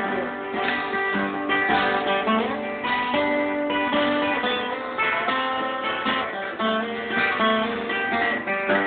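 Two acoustic guitars playing together, strumming chords in an instrumental break of a country song.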